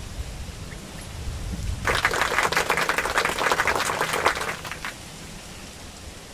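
A burst of dense fluttering and rustling, about three seconds long and starting about two seconds in: small birds beating their wings against the slats of a bamboo trap cage.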